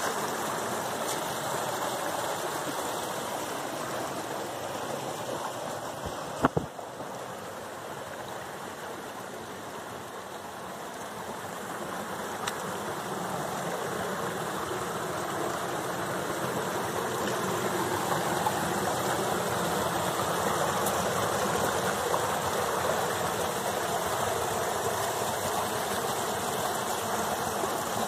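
Small forest stream rushing steadily over mossy rocks and little cascades, growing louder in the second half. One sharp knock about six seconds in.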